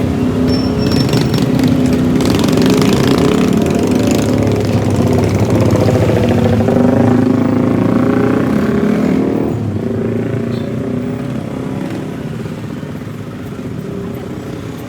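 Engine of a motor vehicle, most likely a motorcycle, running close by with its pitch shifting, then fading away after about ten seconds.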